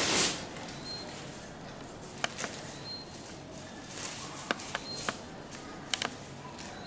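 A short cough into a tissue right at the start, then quiet room hiss broken by a handful of faint clicks and taps.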